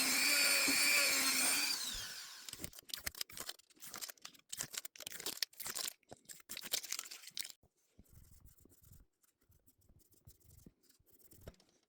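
A small power tool runs with a steady whine and winds down about two seconds in. Rapid, irregular rubbing strokes follow for several seconds, as in polishing by hand, and fade to lighter rubbing near the end.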